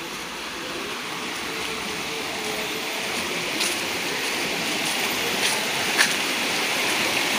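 A shallow rocky stream rushing over small rapids: a steady rush of water that slowly grows louder, with a few faint clicks.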